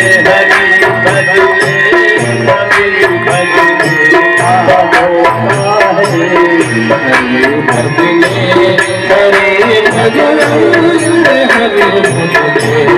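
Devotional bhajan music: a hand drum plays a steady, quick rhythm under a wavering melody line.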